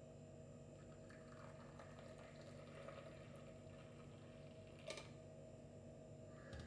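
Faint trickle of hot coffee being poured from a stovetop percolator into a cup, with a short sharp tap about five seconds in.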